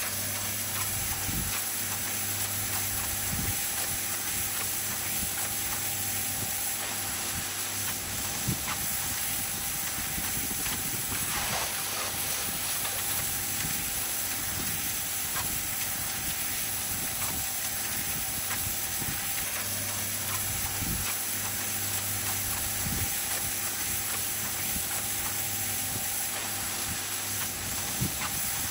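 Pressure washer running, its jet hissing steadily on stone patio slabs over a steady machine hum.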